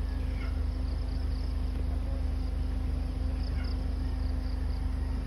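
A steady low hum with a faint steady higher tone running under it, and faint high chirping recurring every second or so.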